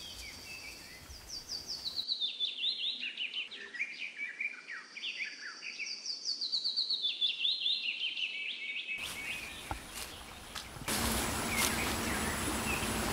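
A songbird singing twice, each song a quick run of short chirps that steps down from high to mid pitch. A steady hissing noise sets in near the end.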